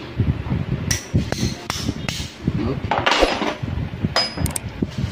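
Sharp metallic taps and clicks from a steel tool working against the steel housing of a Suzuki Skydrive 125's starter clutch (Bendix drive): four spaced about a third of a second apart in the first half, and a pair near the end. In between, about three seconds in, there is a rougher scrubbing noise from a cloth being rubbed over the part.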